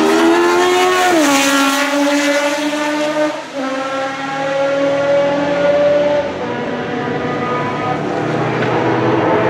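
Ford Cosworth V8 of a 1978 Fittipaldi F5A Formula One car driven hard at high revs: the engine note climbs, drops sharply on an upshift about a second in, dips briefly around three and a half seconds, runs steadily, and climbs again near the end.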